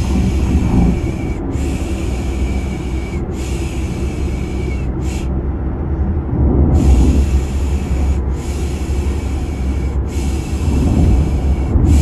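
Repeated 'shhh' shushing, the soothing sound used to lull a baby to sleep, over the steady low rumble of a car. Each shush lasts about a second and a half with short breaks between, and there is one longer pause near the middle.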